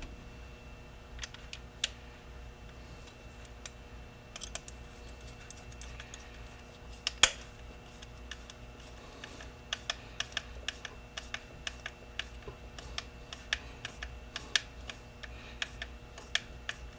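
Small clicks and taps of hand-assembling an RC truck's Clod axle knuckle parts. The clicks are scattered at first, with one louder knock about seven seconds in, then come quickly over the last several seconds.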